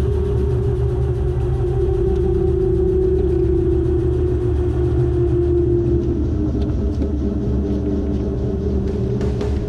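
Robinson R22 helicopter's piston engine and rotor running steadily on the ground after landing, heard inside the cabin as a low drone with a tone that drifts slightly lower in pitch. A few sharp clicks near the end.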